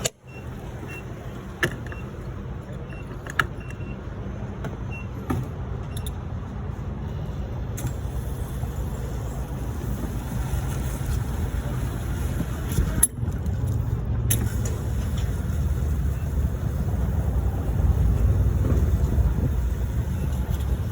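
Petrol lawn mower engine running steadily with a low rumble, with a couple of sharp clicks in the first few seconds.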